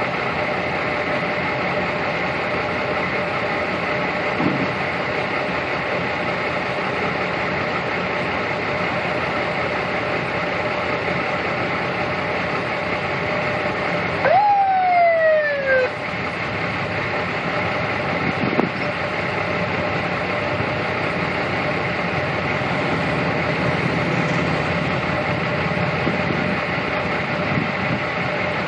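Steady rumble of traffic as a procession of police patrol cars rolls through an intersection. About halfway through, a police siren gives one short whoop that jumps up and then falls in pitch over about a second and a half.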